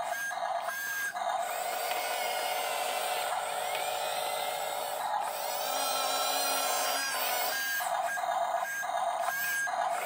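Electric drive motors of a toy RC track-type bulldozer whining steadily as it drives over soil, stopping and starting a few times about a second in and again near the end.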